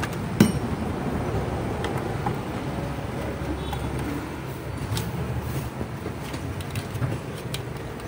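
Light clicks and taps of motor lead wires and a screwdriver being handled inside a plastic tower fan base, the sharpest click about half a second in, over a steady low background rumble.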